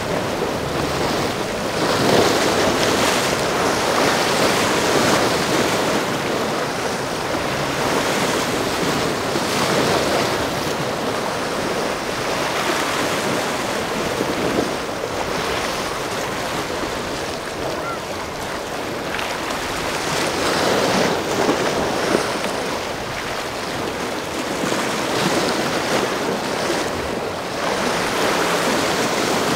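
Waves breaking and surf rushing, with wind buffeting the microphone. The rushing swells and eases every few seconds as the waves roll in.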